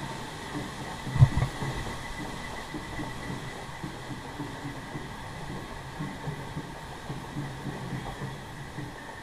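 River-rapids raft riding up the ride's conveyor lift hill: the lift's rollers and chain under the raft run with a steady rumbling clatter and a faint steady high whine. There is one loud thump about a second in.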